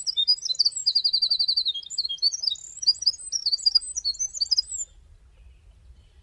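A wren singing its long, rapid song of high notes, with a fast, even trill about a second in. The song stops about five seconds in.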